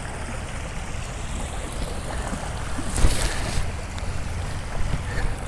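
Steady rush of flowing water in a rain-swollen riverbed, with wind rumbling on the microphone and a louder rush about three seconds in.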